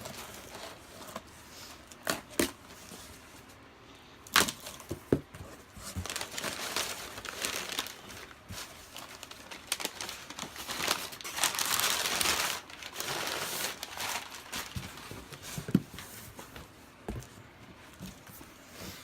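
A shipping box being opened by hand: a few knocks and clicks from the box, then a long stretch of tearing and crinkling of packaging, loudest about twelve seconds in.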